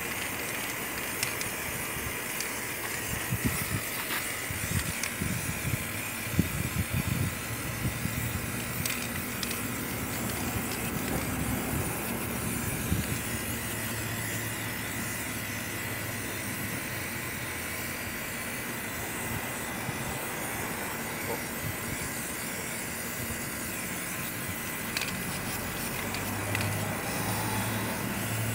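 Aerosol spray paint can hissing steadily as it sprays a truck wheel, with some low bumps in the first half and a low hum near the end.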